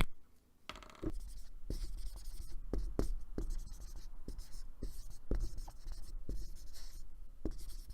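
Marker writing on a whiteboard: a quick run of short scratchy strokes and taps of the tip against the board, starting about a second in.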